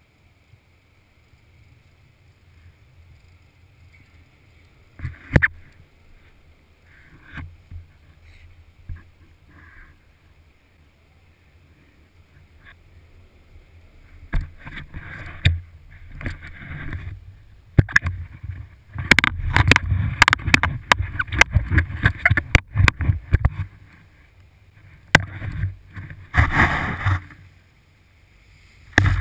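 Skis sliding and scraping through chopped-up powder snow, heard muffled through a GoPro's sealed housing. It is faint at first, then from about halfway through comes dense, loud scraping with sharp knocks.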